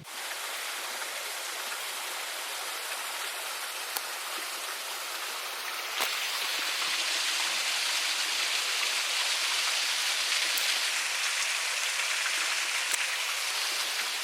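Steady rush of flowing water, getting louder and brighter about six seconds in.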